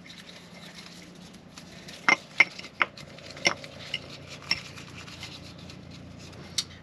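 Small bowl and gloved fingers handled against the pump housing while scooping impeller gel, giving light rubbing and a run of sharp clicks and knocks, about half a dozen between two and five seconds in and one more near the end.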